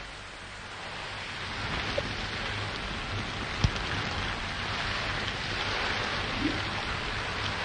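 Steady hiss of rain, a rain sound effect on an old film soundtrack, swelling a little over the first two seconds, with a sharp click about three and a half seconds in.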